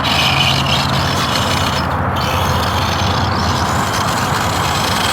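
Vaterra Twin Hammers RC rock racer driving, its electric motor and drivetrain giving a steady low hum over a rough grinding noise. It sounds a little noisy, a sign of the drivetrain trouble that soon stops the truck.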